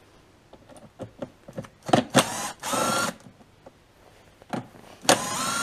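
Cordless drill backing out the cover screws of a Honda EU20i generator's plastic casing: one run of about a second with a steady whine, a little past two seconds in, and another starting near the end. Light clicks and knocks come before the first run.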